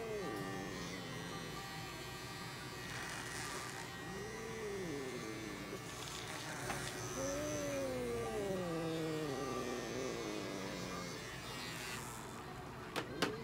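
Small battery pet clipper buzzing as it trims the fur between a cat's paw pads, while the restrained cat gives low, drawn-out yowls that slide down in pitch, about four and again seven seconds in. Two sharp clicks near the end.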